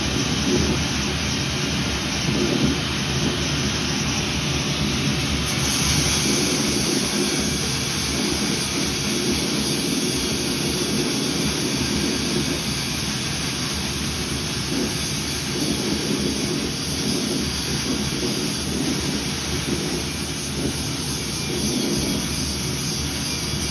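Gas forge burner running: a steady rushing noise with no hammer blows, a little brighter from about five seconds in.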